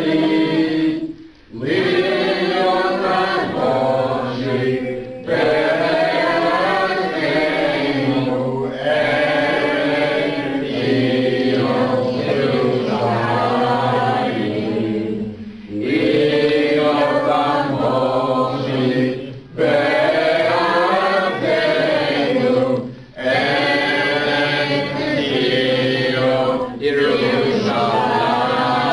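A group of voices singing a chant-like song in phrases a few seconds long, each broken by a short pause.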